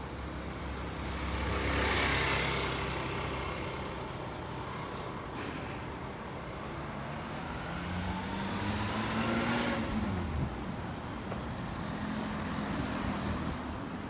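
Road traffic passing on a city street. A vehicle goes by about two seconds in, and another engine rises in pitch as it accelerates past around eight to ten seconds in.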